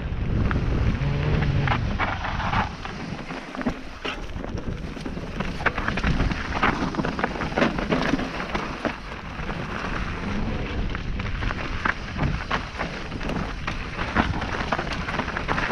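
Constant low wind rumble on an action camera's microphone, with irregular knocks, crunches and rattles from fast travel over a rough dirt and stone trail.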